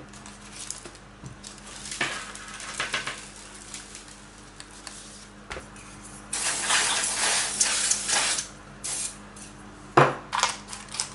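Canned air duster hissing in one long blast of about two seconds, then a shorter one, blowing sand and dust out of an RC car's chassis. A few knocks and clatter of the can and tools on the table around it.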